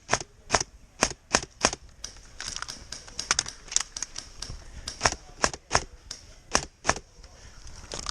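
Airsoft guns firing single shots: a string of sharp cracks at an uneven pace, two or three a second, some in quick pairs.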